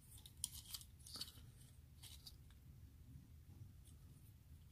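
Faint clicks and scrapes of small plastic toy parts being handled and pressed together while a Transformers Windcharger figure is transformed, mostly in the first two seconds.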